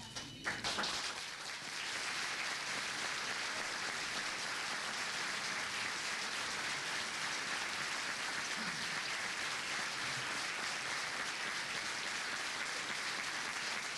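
Audience applauding: many people clapping at once, building up in the first second or two and then holding steady.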